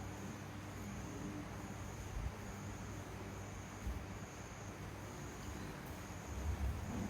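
Crickets chirping faintly, a thin high trill that comes and goes in pulses about a second long, over a steady low hum and a couple of soft thumps.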